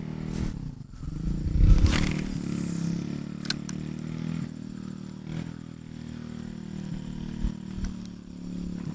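A motorcycle engine running steadily, with a louder swish about two seconds in and a sharp click about a second and a half later.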